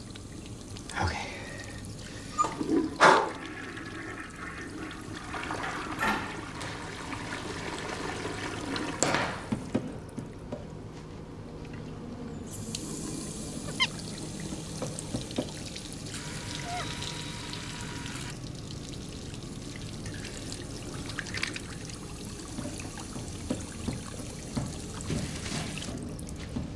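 An automatic sink faucet runs into the basin for about six seconds midway, water splashing steadily. Scattered knocks and clatters come before and after it, the loudest a few seconds in.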